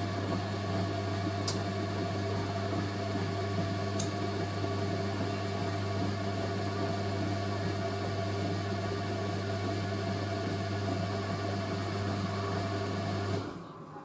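Washing machine drain pump running with a steady low mains hum, cutting off near the end.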